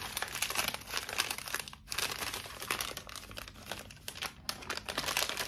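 Brown kraft-paper advent bag crinkling as it is handled and torn open by hand, a continuous run of crackles with brief lulls about two seconds and four and a half seconds in.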